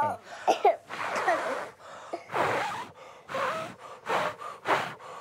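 A man blowing on a toddler's sore foot in a series of about five short puffs of breath, roughly one a second, with a few brief voice sounds near the start.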